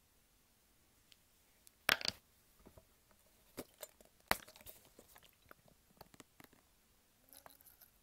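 Irregular sharp clicks and crunching, rustling noises close to the microphone. The loudest is a short cluster about two seconds in and another sharp knock just past four seconds.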